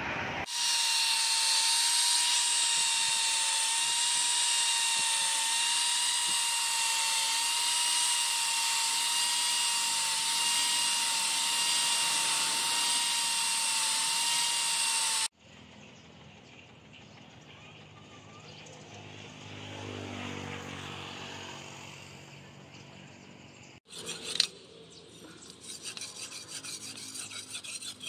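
Small angle grinder with a sanding disc running against a leaf-spring steel cleaver blade: a loud, steady high whine that cuts off suddenly about fifteen seconds in. After a quieter stretch, the blade is stroked back and forth on a sharpening stone near the end, with quick rhythmic rasping strokes.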